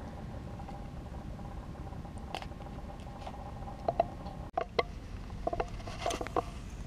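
Low steady rumble with scattered small knocks and clicks of gear being handled in a kayak, several in quick succession about six seconds in as the mounted camera is touched.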